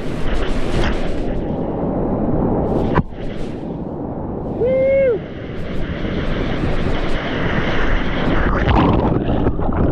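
Whitewater rushing loudly, with wind buffeting the microphone. A sharp knock about three seconds in, then the noise drops for a couple of seconds. A brief shout rises and falls about five seconds in.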